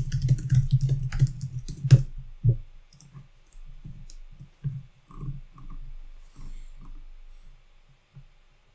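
Typing on a computer keyboard: a fast run of keystrokes for about two and a half seconds, then scattered lighter taps that die away near the end.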